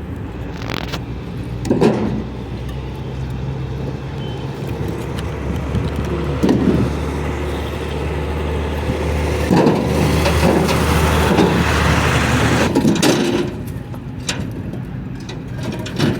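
Heavy vehicle engine running steadily, getting louder for about four seconds in the second half, with a few knocks and bumps.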